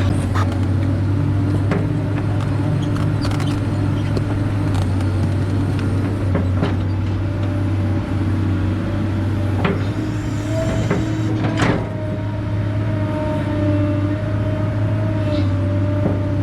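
Excavator's diesel engine running steadily while digging, with a few sharp knocks, the loudest near the end.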